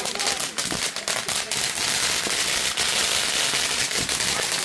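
Consumer ground fireworks spraying sparks with a dense, rapid crackle and hiss. The pops come thickest in the first second and a half, then merge into a steady fizzing crackle.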